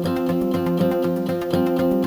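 Background music: a plucked, guitar-like string part over a steady beat.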